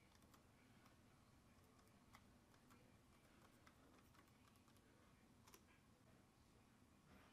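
Faint, irregular key clicks of typing on an HP Spectre x360 laptop keyboard, with two louder taps at about two seconds and five and a half seconds in.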